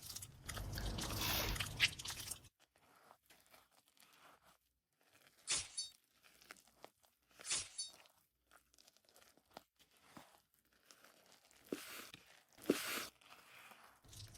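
Food being prepared: a longer rustling, handling noise at the start, then a few short, separate crunches spaced a couple of seconds apart, like crisp bread being cut or pressed.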